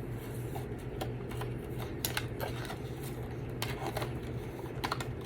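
Cardstock and paper craft pieces being handled: scattered light clicks, taps and rustles, irregular with a few sharper ticks.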